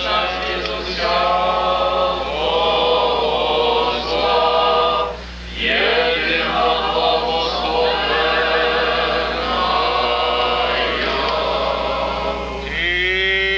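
A group of men's voices chanting an Orthodox liturgical hymn together in long held notes, with a short break about five seconds in.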